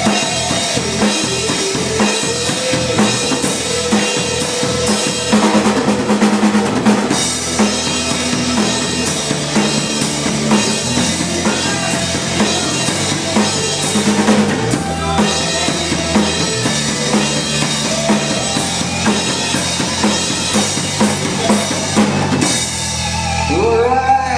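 Band music driven by a drum kit: a steady beat of bass drum and snare hits under held bass and keyboard-like lines. Near the end the drumming stops and only gliding pitched tones remain.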